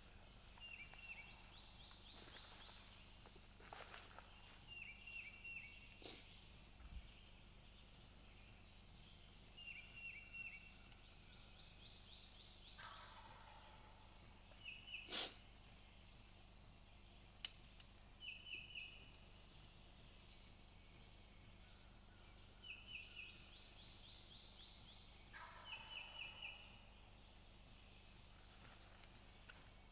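Wild turkey gobbling faintly in the distance, once about halfway through and again near the end. Songbirds sing a short repeated chirping phrase every few seconds throughout.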